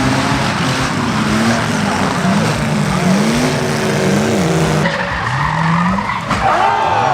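Drag race car engines revving up and down again and again over tire squeal, with an abrupt change in the sound about five seconds in.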